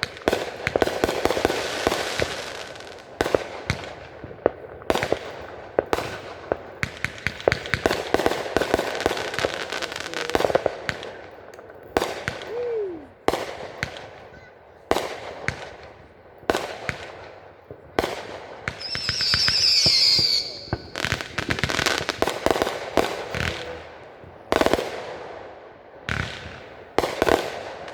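Fireworks display: many sharp bangs of bursting shells in close succession, with crackling between them. About two-thirds of the way through comes a high, warbling whistle lasting about two seconds.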